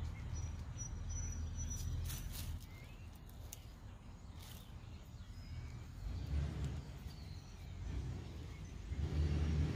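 Outdoor background: a steady low rumble that swells twice, with a few faint bird chirps and light clicks, and a thin high steady tone for about two seconds near the start.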